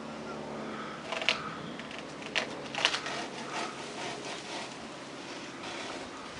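A few short, sharp crackles and rustles of dry palm fronds being pulled and broken by hand, over a faint steady background hum.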